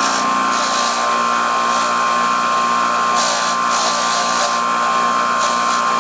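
Bench-mounted wire wheel spinning with a steady motor whine, and several short bursts of scratching hiss as a rusty Allen-head bolt is pressed against the wire bristles to strip the rust.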